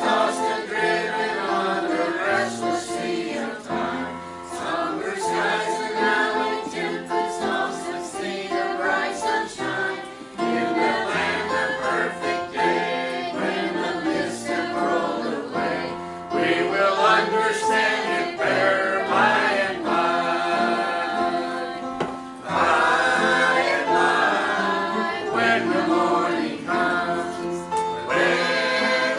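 A small mixed choir of men and women singing a gospel song together, with sustained, shifting chords.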